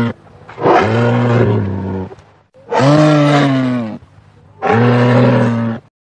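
Moose calling: three long, drawn-out, low-pitched calls of about a second and a half each, coming about every two seconds, with the end of an earlier call right at the start.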